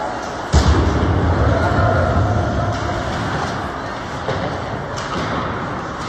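Hockey rink boards and glass struck hard, a sudden loud thud about half a second in, then a low rumble that dies away over a couple of seconds, over crowd chatter.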